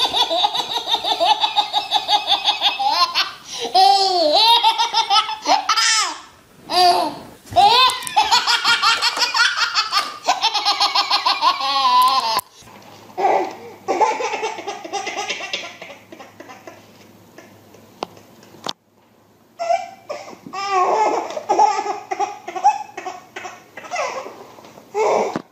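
A baby's belly laughter in long runs of quick, repeated laughs. About halfway through it changes suddenly to quieter, more broken-up baby laughter.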